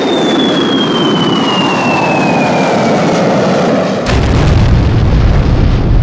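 Cartoon sound effects: a falling whistle, descending steadily in pitch over a rushing noise as an object streaks down through the sky, then a sudden explosion about four seconds in followed by deep rumbling.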